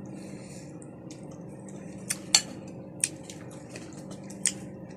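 Table sounds of a seafood meal being eaten: about five short, sharp clicks and clinks, the loudest about halfway through, over a faint steady hum.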